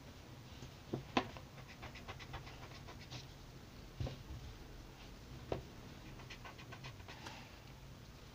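Graphite pencil shading on paper: two runs of quick back-and-forth scratching strokes, with a few knocks.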